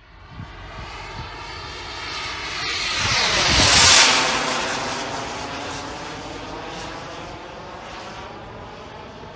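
Turbine-powered RC model jet (Sebart Avanti S) making a fly-by: the turbine's rush and whine swells to a loud peak about four seconds in, then slowly fades as it moves away.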